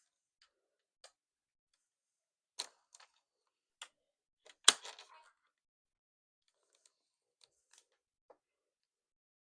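Scattered small clicks and taps of things being handled, about a dozen in all, with one sharp, louder click a little before the middle and a few faint ticks near the end.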